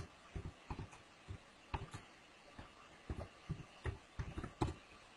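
Computer keyboard being typed on: a faint, irregular run of soft, dull keystroke taps.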